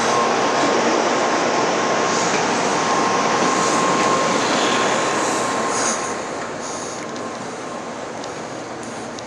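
800 series Shinkansen running, heard from inside the passenger car: a dense rushing noise of wheels and air with a faint steady whine. The noise drops noticeably about six seconds in.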